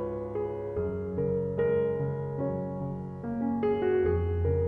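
Slow, gentle background piano music, with single notes over held bass notes that change about a second in and again near the end.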